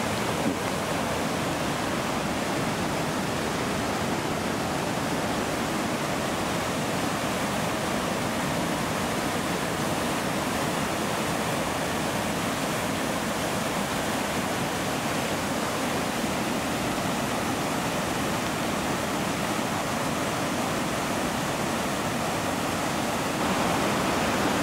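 A river swollen with floodwater rushing in a steady torrent over and through a broken concrete crossing and its culverts.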